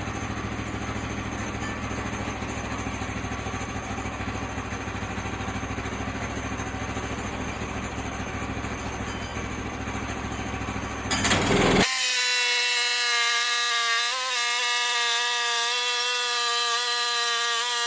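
Sawmill running steadily, its engine humming. About eleven seconds in, the blade enters a white oak log for the first cut, and a louder, steady whine takes over, dipping briefly partway through.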